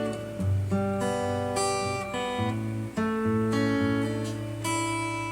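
Acoustic guitar playing a slow introduction, with chords struck and left ringing and a change of chord roughly every second.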